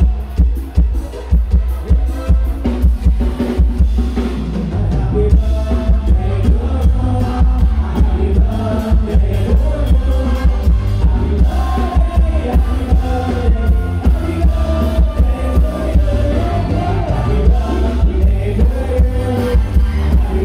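Live band playing loud through a stage PA: drum kit keeping a steady beat under a heavy electric bass, with male voices singing, stronger after the first few seconds.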